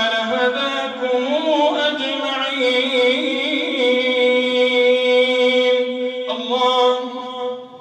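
A man's voice reciting the Quran in a slow, melodic chant, holding long drawn-out notes with a short break near the end before trailing off.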